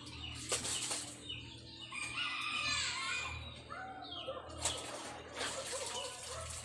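Wet laundry being lifted out of a plastic tub and wrung by hand, with water splashing and dripping back into the basin in a few short sharp splashes. Chickens cluck in the background.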